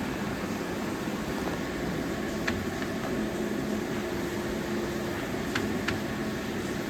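1977 Washino LR-55A engine lathe running with its spindle turning: a steady geared-headstock hum, with a few faint ticks.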